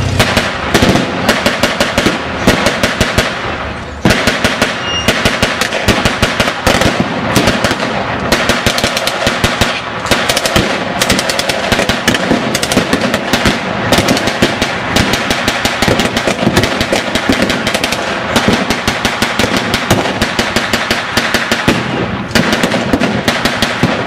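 Heavy gunfire from blank-firing rifles and machine guns: rapid, overlapping single shots and automatic bursts, several a second, dipping only briefly just before four seconds in.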